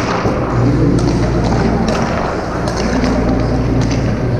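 Ice-rink hockey ambience: skates scraping on the ice and a few sharp clacks of sticks on pucks and pucks against the boards, one near the start, over a steady low hum.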